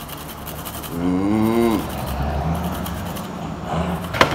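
Garlic rubbed on a metal box grater: quick scratchy rasping strokes, in a run at the start and again past the middle. About a second in, a drawn-out call rises and falls in pitch over the grating, with a low rumble underneath and a sharp click near the end.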